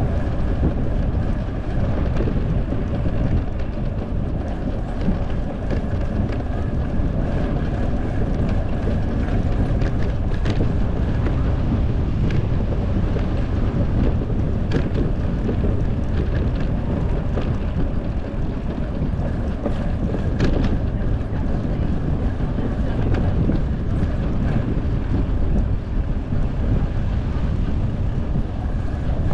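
Wind buffeting the microphone of a camera on a moving bicycle, a steady low rumble mixed with road and tyre noise. A few sharp clicks or rattles break through, the strongest about twenty seconds in.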